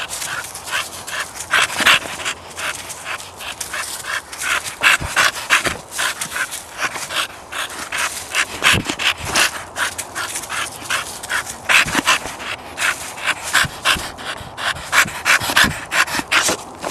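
A blue Staffordshire bull terrier playing excitedly, panting hard while its paws scuffle and crunch through dry fallen leaves in quick, irregular bursts several times a second.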